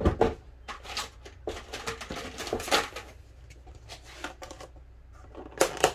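Plastic food-storage container being handled and closed: a string of irregular clicks and light knocks with a few short rustling swishes.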